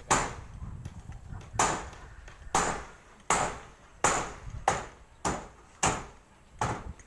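Hammer blows on a corrugated galvanized iron roof sheet: about nine sharp metallic knocks, a little under a second apart, each ringing briefly.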